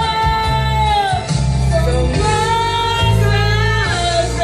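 Women singing into microphones through a PA in long, held notes, over recorded backing music with a steady bass line.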